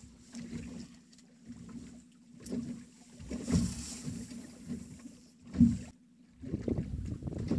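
Lake water slapping against the hull of a small boat in irregular surges, with one louder knock a little past halfway.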